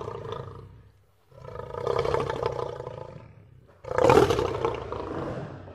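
Lion roaring: a recorded clip of long roars, one trailing off about a second in, a second rising and fading in the middle, and the loudest starting about four seconds in.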